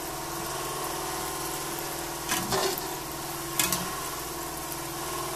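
Kalojam dough balls deep-frying in hot oil, a steady sizzle, with a steady hum underneath. A slotted spoon knocks against the pan twice, about two and a half and three and a half seconds in.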